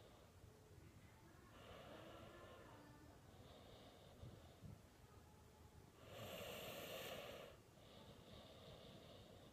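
A sleeping person snoring faintly, with slow, noisy breaths coming one after another. One louder snore comes about six seconds in and lasts over a second.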